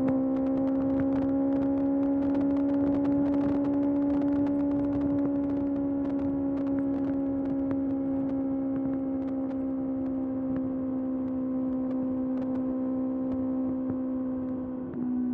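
Kawasaki ZX-6R's 636 cc inline-four engine running at steady high revs while riding, a single strong drone that eases slightly in pitch. Near the end the pitch drops abruptly with a brief dip in loudness, as the revs fall.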